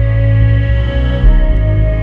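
Background music: slow ambient music with long held chords.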